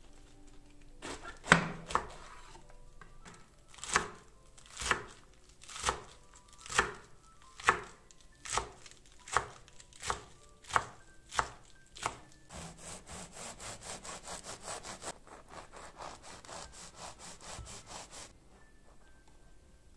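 Chef's knife chopping iceberg lettuce on a wooden cutting board: sharp separate strokes landing on the board a little under a second apart, then a run of quicker, softer knife strokes, about five a second, over the last third.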